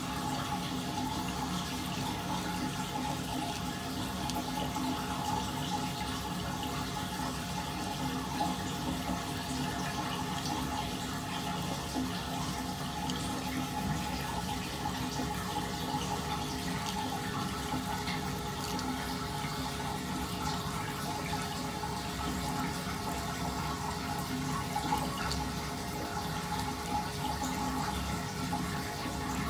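Water swirling steadily down a stainless-steel sink drain in a whirlpool, with a few faint held tones in the steady rushing; the drain is flowing freely now that the pipe has been unclogged.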